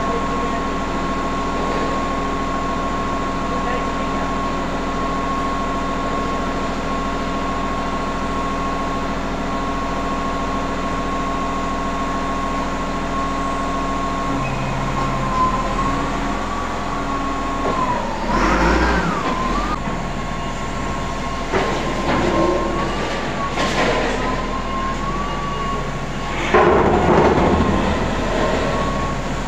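Large industrial machinery running with a steady hum and a high whine. About halfway through, the whine begins to waver in pitch, and a few louder noises break in over the last ten seconds.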